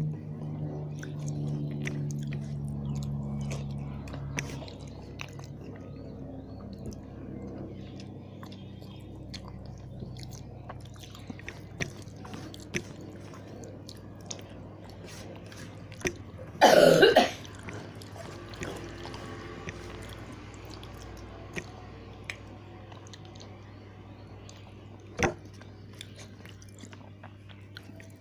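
Close-up eating sounds of a person chewing rice and vegetables, with small wet mouth clicks and smacks. Background music fades out over the first few seconds. One short, loud burst comes about two-thirds of the way through, and a sharp click comes near the end.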